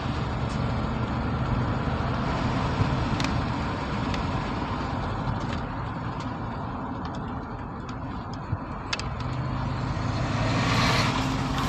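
2011 Toyota Land Cruiser running with a steady low engine hum. The engine has a slight misfire on cylinders 2 and 4, barely noticeable.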